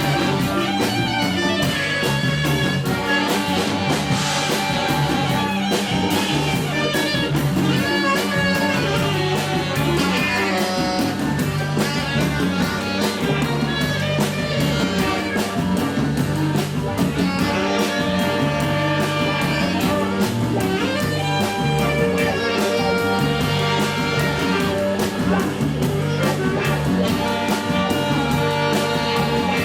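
Live band playing an Ethiopian jazz cover, with guitar over a steady low line and drum kit keeping a regular beat.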